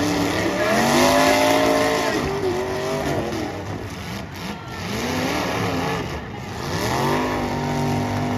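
Demolition derby car engines revving hard, rising in pitch, holding and dropping back, once about a second in and again near the end.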